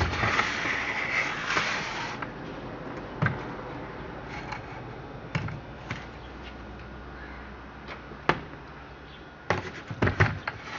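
A heavy chainsaw being handled and turned around on a bench: a scraping rustle for about two seconds, then scattered knocks and clicks, with a cluster of knocks near the end.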